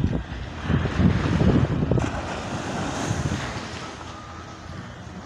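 Wind buffeting the phone's microphone in gusts over the wash of small waves breaking on a sandy shore; the gusts ease off in the last couple of seconds.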